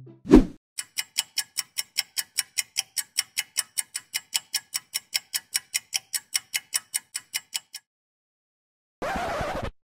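Clock-ticking sound effect: quick, even ticks, about five a second, lasting about seven seconds, opened by a short whoosh. Near the end comes a brief, dense burst of whooshing noise.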